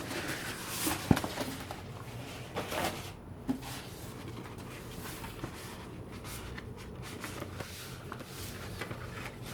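Large paper posters rustling and crinkling as they are handled, with soft swishes of the sheets and one sharp tap about a second in.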